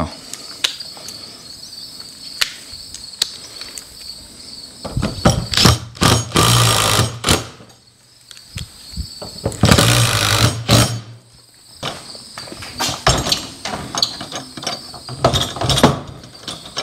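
Cordless drill-driver driving sheet metal screws through garage door hinges into the steel door panel, in two runs of about a second each around six and ten seconds in, with a few shorter bursts and clicks of handling between. Crickets chirp steadily in the background.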